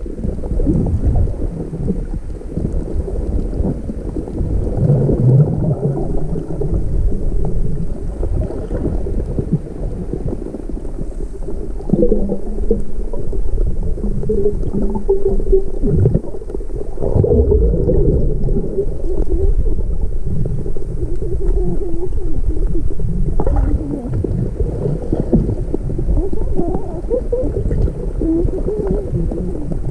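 Muffled underwater water noise around a submerged camera: continuous sloshing and gurgling, with irregular wavering low tones.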